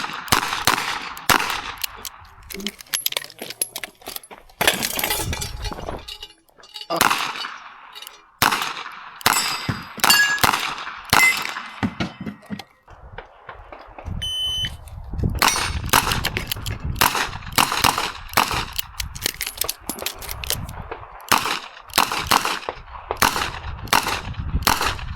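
Revolver fired in rapid strings of shots, broken by short pauses. Metal targets ring with a clang after several of the hits.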